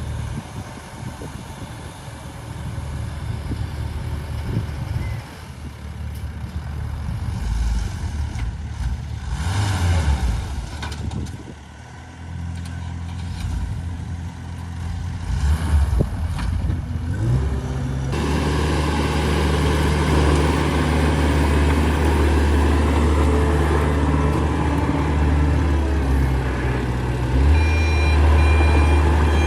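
Heavy diesel machinery engine working, changing in level during the first part, then running louder and steady. Near the end a reversing alarm beeps repeatedly.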